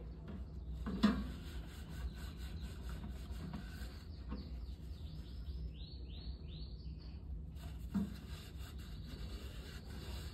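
Light scraping and handling noises of repair work on a washing machine, with two sharp knocks about a second in and near the end. A quick run of short, high, falling chirps comes around the middle.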